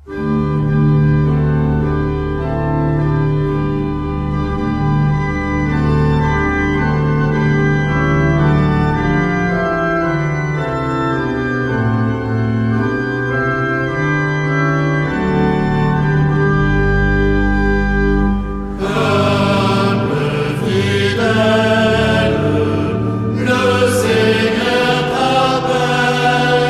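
Organ music with slow, held chords. About two-thirds of the way through, a choir joins in, singing over the organ.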